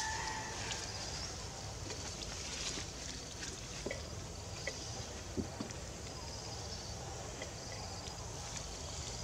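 Quiet outdoor background: a steady hiss with faint, short high-pitched chirps repeating throughout and a few soft clicks.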